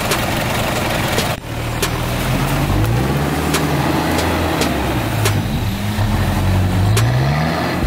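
Land Rover Series 4x4 engine revving in rising and falling swells as it pushes through deep mud, with scattered sharp clicks and knocks.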